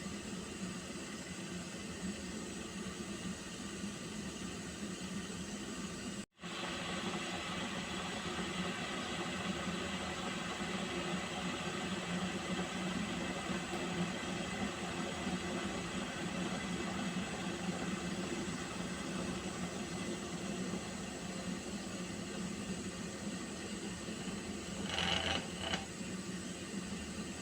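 Water being heated to the boil, a steady hiss with a faint hum under it. The sound cuts out for an instant about six seconds in, and a short, brighter sound rises over the hiss near the end.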